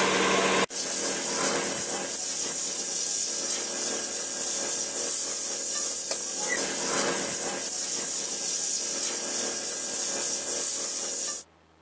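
Metal lathe spinning a steel bowl, with a steady hissing rub of metal against the turning workpiece over the machine's low hum. It breaks off for a moment under a second in and cuts off abruptly near the end.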